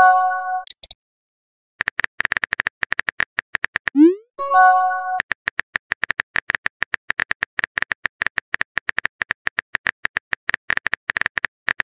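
Texting-app sound effects: a short bright chime at the start, then rapid, even keyboard-tap clicks. About four seconds in, a rising pop and another chime mark a new message bubble appearing, and the tapping picks up again and runs on to the end.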